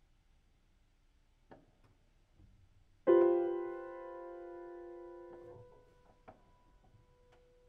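A grand piano chord is struck loudly about three seconds in. It rings and fades for about two seconds, then is cut off as the dampers fall. Soft knocks from the pedal mechanism come before and after it, and a single note is left sounding after the pedal change.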